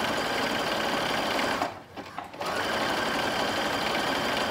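Computerized home sewing machine running steadily as it topstitches elastic onto stretch fabric with a triple step zigzag stitch. It stops briefly about two seconds in, then starts stitching again.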